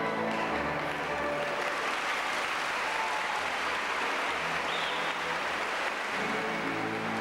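An audience applauding, with music playing quietly underneath and coming up again near the end.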